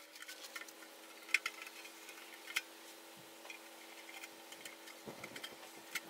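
Light clicks and taps of a screwdriver and hands working at the screws of a metal engine control unit case, with two sharper clicks a little past one second and about two and a half seconds in, over a faint steady hum.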